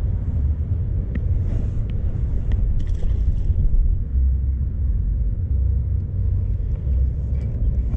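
Steady low rumble of wind buffeting the microphone, with a few faint clicks early on. It cuts off sharply at the end.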